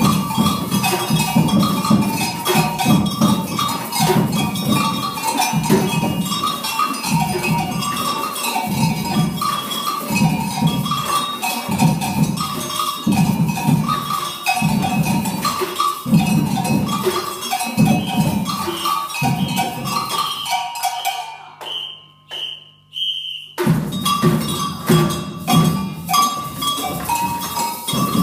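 Children's samba percussion band playing a steady, driving groove: low drum beats under a repeating bell pattern. About 21 seconds in, the band stops for two or three seconds while three short, high whistle notes sound, then the drumming comes back in.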